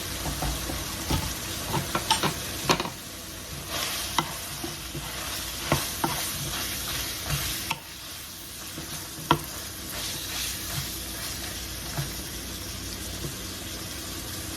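Ground beef and onion sizzling in a frying pan while being stirred, with irregular clicks and knocks of a utensil against the pan.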